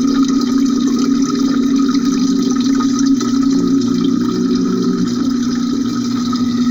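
Water from a homemade cement fountain's cascade pouring steadily into its pond, recorded from inside a glass jar under the water, with a steady low hum beneath the splashing.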